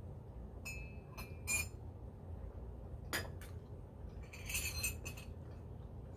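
A metal drinking straw clinking against a ceramic mug as the mug is handled and set down. A few light clinks with a brief ring about a second in, two more around three seconds, and a quick cluster of clinks near five seconds.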